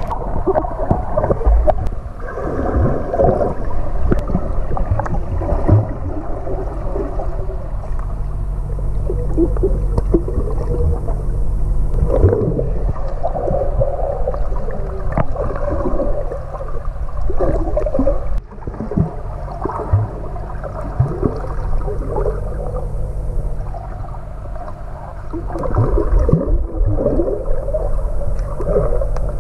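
Swimming pool heard underwater through an action camera's microphone: a steady low rumble with continual bubbling and gurgling from swimmers' strokes and kicks, all muffled.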